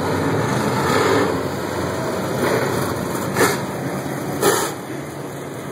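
Dirt-track modified race cars' engines running together as the field passes, with two short, sharp louder sounds about three and a half and four and a half seconds in.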